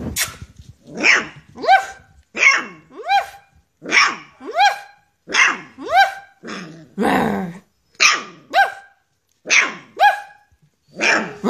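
Alaskan Malamute puppy giving a run of about fifteen short, raspy yaps, mostly in pairs, each one rising then falling in pitch: its failed attempts at a growl.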